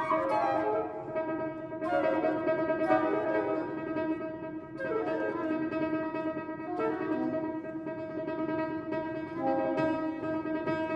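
Flute and soprano saxophone playing long held notes together over grand piano, a classical chamber trio.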